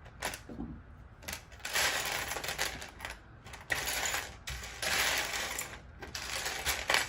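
Small plastic LEGO pieces clattering and rattling as hands sift through a pile of them, in about half a dozen short bursts.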